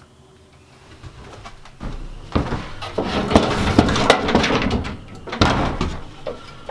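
Wooden fold-down table being lowered from the wall and its legs set in place: a run of knocks, scrapes and rattles of wood on wood, starting about two seconds in and loudest in the middle, with another short clatter near the end.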